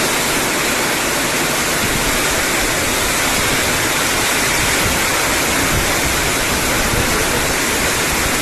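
Heavy rain pouring down in a storm, a loud, steady, unbroken hiss.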